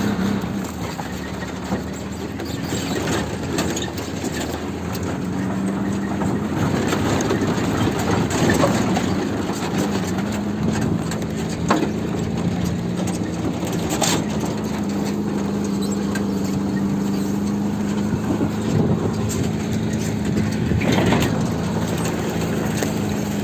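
A motor vehicle's engine running steadily, with a constant low hum and rushing noise, and a few short knocks.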